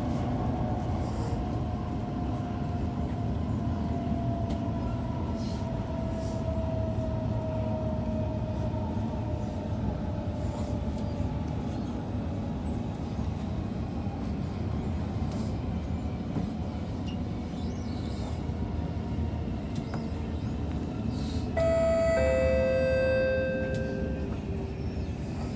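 Singapore MRT train running with a steady low rumble and a faint whine that slowly falls in pitch. About 22 seconds in, a two-note descending chime sounds over the train noise.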